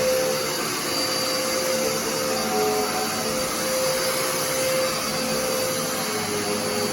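Dirt Devil Endura Reach stick vacuum running steadily in floor mode, its motor giving a constant whir with a high whine.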